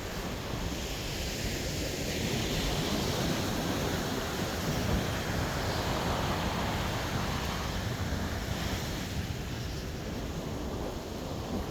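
Ocean surf breaking and washing up on a sandy beach, with wind buffeting the microphone.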